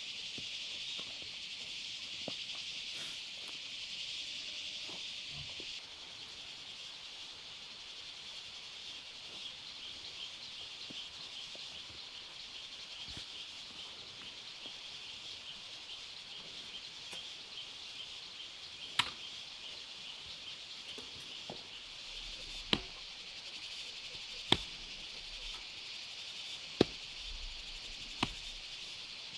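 Steady high chirring of insects, with five sharp chopping strikes in the last third, a couple of seconds apart.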